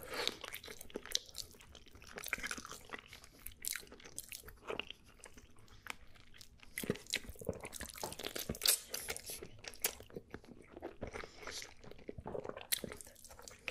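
Close-up mouth sounds of a person eating spaghetti in meat sauce by the handful: quiet wet chewing and smacking, an irregular run of small clicks.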